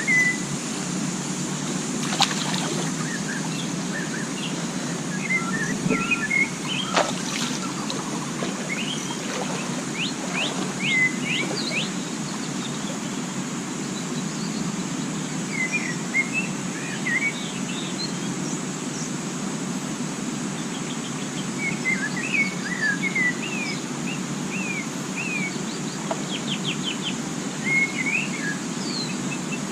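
Forest birds chirping and calling in short, quick phrases scattered throughout, over a steady low rushing background and a steady high hiss.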